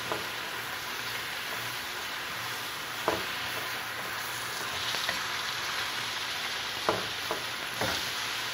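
Sliced bottle gourd and onions sizzling steadily in oil in a pan while being stir-fried with a wooden spatula, which knocks against the pan a few times.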